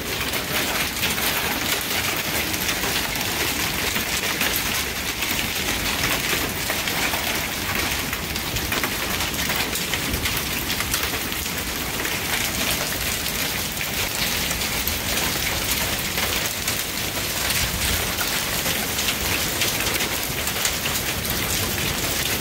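Heavy rain mixed with small hail pelting down: a steady dense hiss thick with tiny impact ticks.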